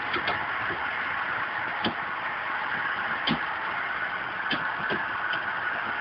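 Scattered light metallic clicks, about six at irregular intervals, as a cylindrical brake-installation tool is worked against a carbon brake assembly, over a steady loud background noise.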